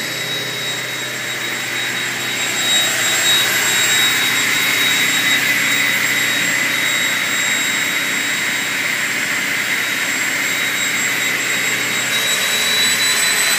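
ACK 700 up-cutting saw machine running, a steady high whine over a rushing hiss that grows a little louder a few seconds in.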